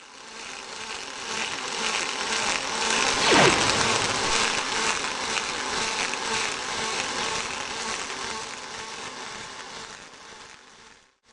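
Robotic arc-welding torch crackling and buzzing steadily, fading in and out. A brief falling whistle sounds about three seconds in.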